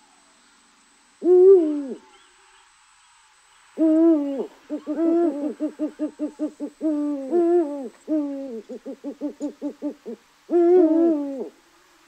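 An owl hooting: one falling hoot about a second in, then from about four seconds a string of falling hoots broken by quick runs of short hoots, about five a second.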